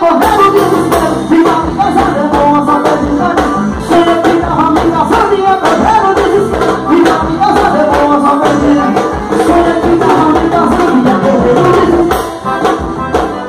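Live band music played loud: a male singer singing into a microphone over keyboard and a steady drum beat.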